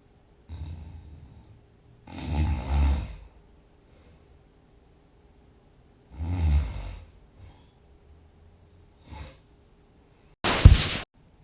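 A sleeping person snoring loudly. There is a softer breath first, then two long snores about four seconds apart, then a few faint breaths. Near the end comes a short, sharp burst, the loudest sound of all.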